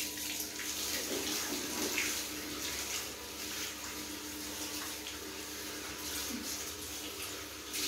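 Handheld shower head spraying water steadily onto a dog's wet coat and the shower tray, a continuous hiss of running water in a tiled shower stall.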